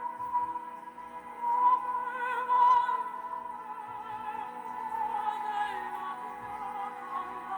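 Operatic music: a singing voice holds long notes with vibrato.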